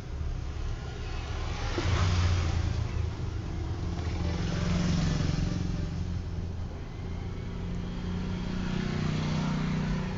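Road traffic passing, a steady low engine hum with the noise swelling and fading about three times as vehicles go by.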